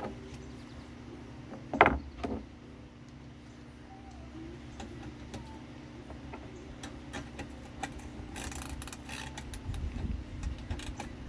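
Hand-tool work on metal parts: two sharp knocks about two seconds in, then from about eight seconds on a run of quick light clicks, the sound of a ratchet wrench turning bolts to take the part off.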